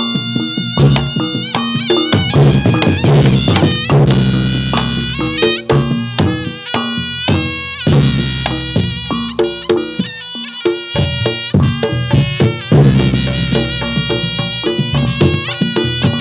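Reog Ponorogo gamelan accompanying a jathilan dance: a slompret, a nasal reed shawm, plays a bending, ornamented melody over drums and struck gongs.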